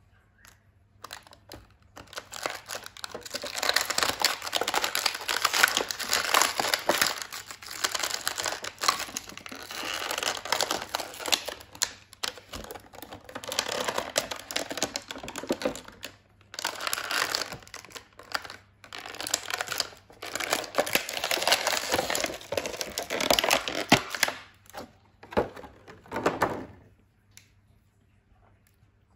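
Plastic toy packaging being handled and unwrapped: dense crinkling and crackling in several long bursts with short pauses, stopping about two seconds before the end.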